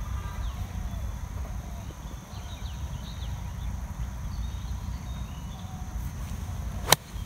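A golf iron strikes the ball on a full approach swing, a single sharp crack near the end, over a steady low rumble.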